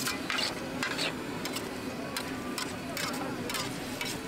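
Cooking utensils at a street-food stall, clicking and clattering in irregular sharp knocks over a steady low hum, with voices in the background.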